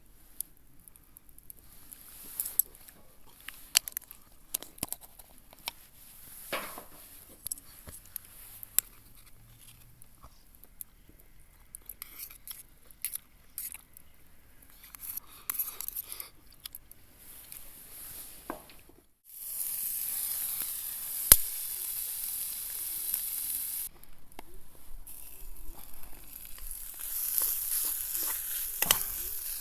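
Scattered light clicks and knocks of handling for most of the first two-thirds. About two-thirds of the way in, food starts sizzling in a frying pan: a steady hiss that breaks off briefly and then carries on.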